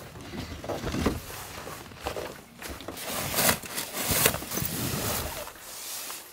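Camping gear being unloaded from the back of a van: a plastic jerry can handled with a few knocks, then bulky fabric bags dragged out with a rustling and several sharp knocks.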